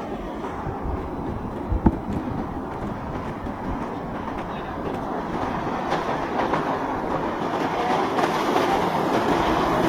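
Boat engine running through rough inlet water, growing louder toward the end, with a single sharp thump about two seconds in.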